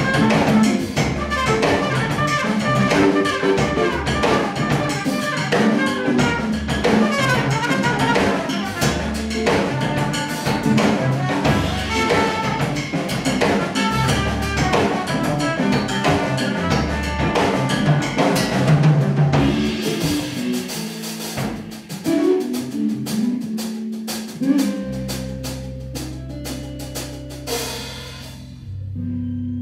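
Live jazz trio playing: drum kit, guitar and cornet. The playing is dense at first and thins out about two-thirds of the way through, leaving a held low note from about 25 seconds in.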